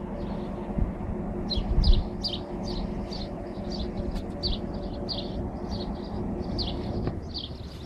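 A bird chirping, a quick series of short high notes about three a second, over a steady low hum, with a few light bumps from hands working at the plastic pillar trim.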